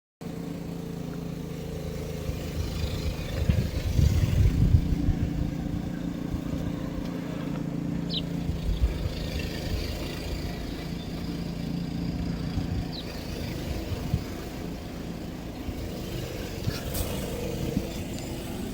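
An engine running steadily at a constant pitch, with a few low rumbling bursts about four seconds in.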